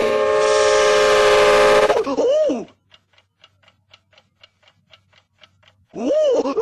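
A loud, harsh held sound cuts off about two seconds in, followed by short warbling tones that rise and fall. Then a clock ticks faintly, about four ticks a second, for some three seconds. The loud rise-and-fall warbling tones come back near the end.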